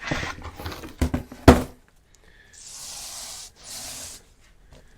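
Small roller coated in melted beeswax rolling over a plastic beehive foundation sheet: a hissing rub in strokes, two of them in the second half. There are a couple of sharp knocks about a second and a half in.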